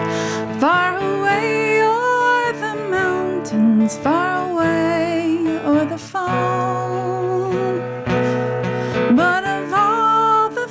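Live band music: strummed acoustic guitar under a lead melody that slides into its notes and wavers with vibrato.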